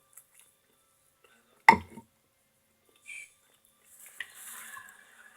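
A single short, loud throat sound from the eater a little under two seconds in, then soft eating noises from about four seconds on.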